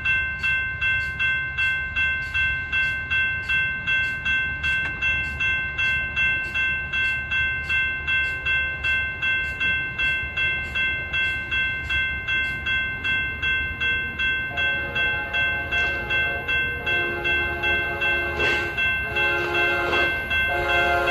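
A railroad crossing bell rings steadily, about two strikes a second. From about two-thirds of the way in, the horn of an approaching Amtrak P42 locomotive sounds in a series of blasts, growing louder as the train nears.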